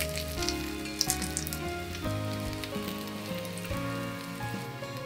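Starch-coated chicken thigh and burdock sizzling in oil in a small iron frying pan, with a few sharp clicks of wooden chopsticks against the pan as the pieces are turned.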